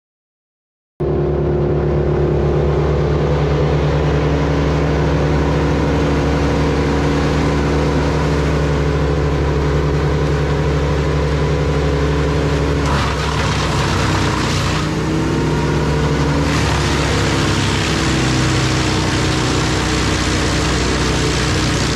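Large wood chipper running at full speed: a steady engine note under the noise of the chipping drum. About 13 seconds in, the grinding noise grows and the engine note wavers for a few seconds, as material is fed in and loads the machine.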